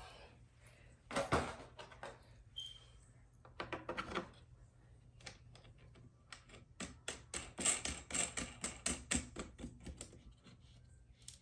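Wooden easel rails and green plastic knobs being handled and fitted together during hand assembly: a sharp knock about a second in, some rubbing around four seconds, then a quick run of clicks and taps, several a second, from about seven to ten seconds as the knob is worked on the rail.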